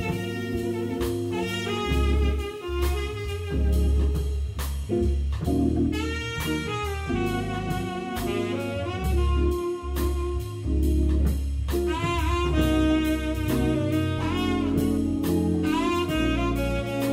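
Jazz quartet playing: tenor saxophone carries the melodic line, with some bent notes, over Hammond organ bass and chords, guitar and a drum kit keeping time on cymbals and drums.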